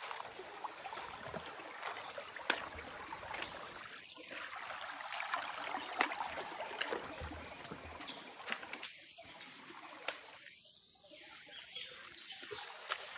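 Footsteps wading through a shallow forest stream, with splashes and sharp clicks among water trickling over stones. Quieter for a couple of seconds near the end.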